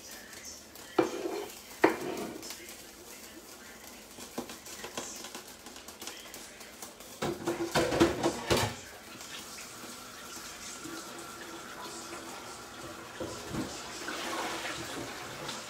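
Kitchen utensils and cookware knocking and scraping: two sharp knocks about a second in against a stainless steel pan of spaghetti, then a longer burst of clattering pots and dishes around eight seconds in.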